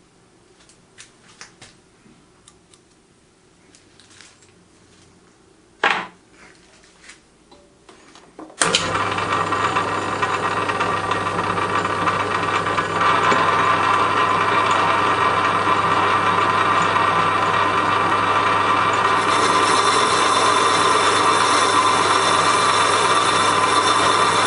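A few light clicks and a knock, then a workshop machine tool starts suddenly about nine seconds in and runs steadily with a low hum. It grows louder from about thirteen seconds, as if it has started cutting.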